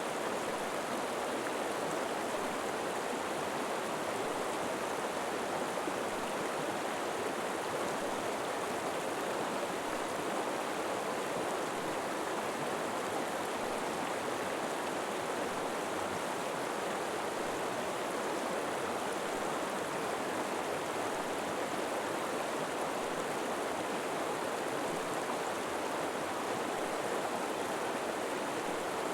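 River water flowing steadily over rocks, an even rushing with no breaks.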